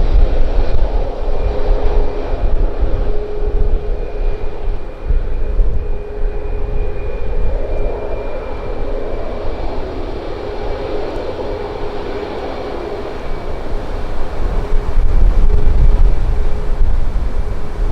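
Boeing 737 MAX's CFM LEAP-1B jet engines running with a steady whine at a constant pitch, under heavy wind buffeting on the microphone that grows louder near the end.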